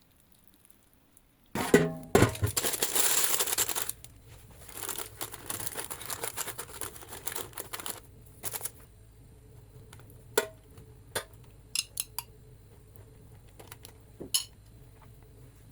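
Kitchen food-preparation handling noises. A knock is followed by a few seconds of loud scraping and rustling, then more rustling, and several light clicks and taps near the end.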